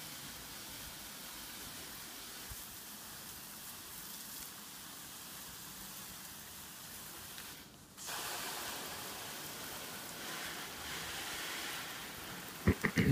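Water spray hissing steadily against a mud-and-bottle wall. It breaks off briefly about eight seconds in, then comes back louder as the spray reaches the corrugated roof. A few sharp knocks come just before the end.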